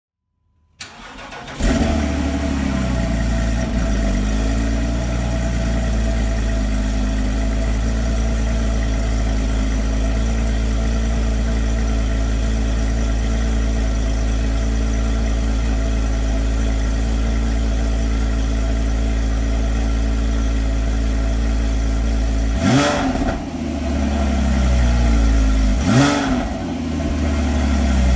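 Porsche 987 Cayman's 2.9-litre flat-six cold-starting, heard at its twin tailpipes. The starter cranks briefly about a second in, the engine catches into a raised cold-start idle that settles slightly and then runs steadily. Near the end, two quick throttle blips rise and fall about three seconds apart.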